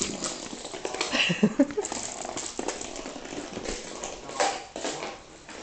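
Cat's jingle ball rattling and skittering across a hardwood floor as the cat bats and chases it, a quick run of clicks and knocks with paw pats. A brief pitched call about a second in is the loudest moment.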